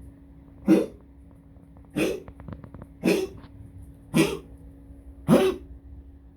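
A pet's coughing fit: five short, sharp coughs about once a second, with a few faint clicks between the second and third.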